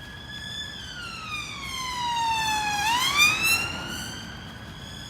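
An emergency vehicle's siren wailing: its pitch sweeps slowly down, turns sharply about three seconds in, and climbs again, loudest around the turn.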